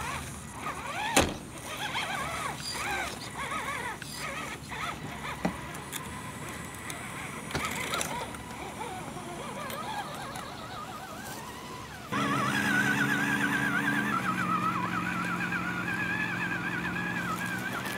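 A few sharp knocks over outdoor sound. About twelve seconds in, background music comes in suddenly: a held low chord that changes once, under a wavering high melody.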